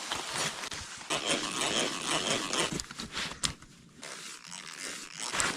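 A drill bit scraping and biting through the steel tang of a hand-forged knife blade, an irregular grinding rasp of short strokes that eases briefly midway and then resumes.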